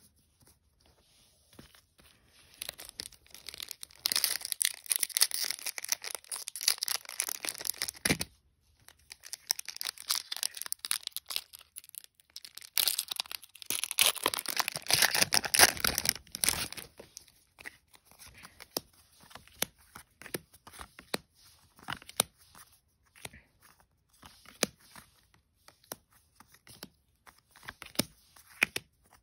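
Foil wrapper of a Magic: The Gathering booster pack being torn open and crinkled, in two long bursts about four and thirteen seconds in. Between and after them come scattered light clicks and slaps of cards being handled and dropped onto piles.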